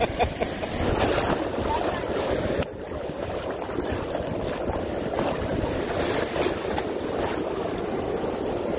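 Ocean surf breaking and washing in the shallows, with wind rumbling on the microphone.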